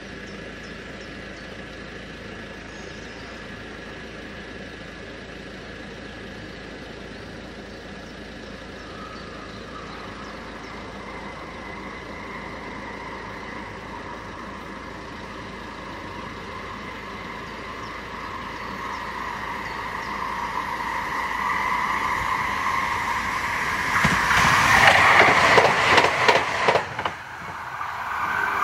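Stadler Tango electric tram-train approaching at speed, its whine growing steadily louder, then passing close by with a loud rush for about three seconds before dropping away suddenly. The level crossing's warning bells ring steadily under it.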